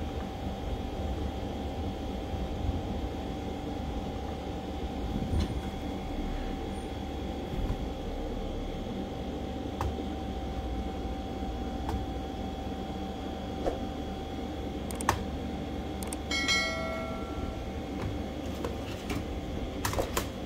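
Steady low background hum, with a few light clicks and taps from handling the laptop and a brief chirping tone about three-quarters of the way in.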